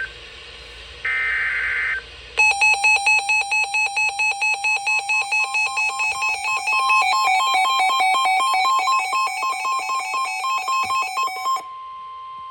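Emergency Alert System signalling. It opens with a harsh, buzzy data burst about a second long, the last of the SAME header bursts. After a short gap comes a loud electronic attention tone, pulsing about four times a second and switching between two pitches for about nine seconds, and it ends in a steady single tone.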